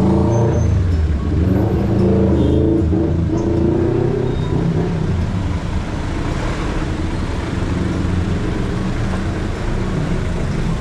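Truck engine pulling through traffic, its pitch rising and falling for the first four seconds or so, then settling into a steady engine and road noise.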